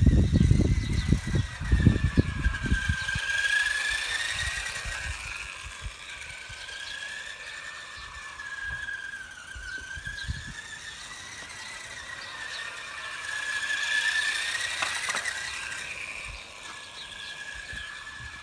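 Small electric RC car (a Donkey Car) motor whining, a high tone that slowly wavers up and down and grows loudest about three-quarters of the way through. Heavy low rumbling knocks on the microphone during the first few seconds.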